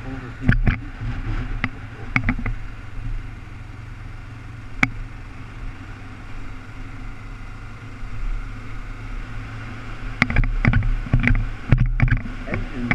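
Sport motorcycle running at a steady road speed, a steady engine drone under rushing wind noise, with scattered sharp knocks and thumps that bunch up about ten to twelve seconds in.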